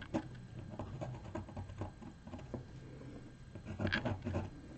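Pencil scratching on paper in many short, irregular strokes, shading bark texture, with a slightly louder run of strokes near the end.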